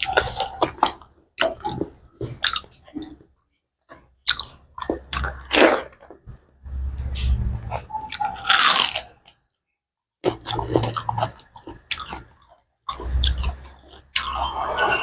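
Close-miked chewing and biting of boiled pork and rice eaten by hand, with wet mouth clicks and smacks. About halfway through comes a loud crunch as a piece of raw red onion is bitten.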